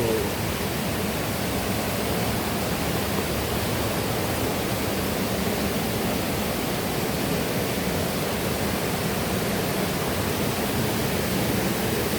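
Steady rush of a flowing mountain river, an even noise of running water with no breaks.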